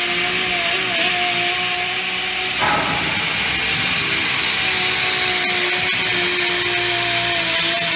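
Portable on-site machining rig cutting a large metal ring face: a steady motor hum with a constant high hiss from the cut, and a brief rougher burst about two and a half seconds in.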